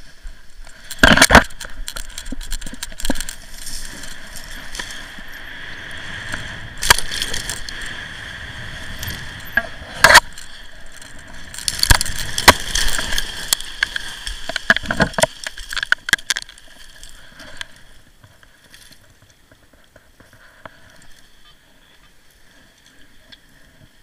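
Bare tree branches and twigs cracking, snapping and scraping as a paraglider crashes into the canopy of a tree. A string of sharp cracks runs through the first two-thirds, then it drops to faint scattered rustles and clicks as the glider hangs caught in the tree.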